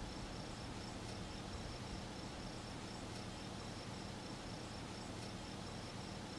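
Insects chirring in a steady high-pitched trill over a low hum: summer field ambience.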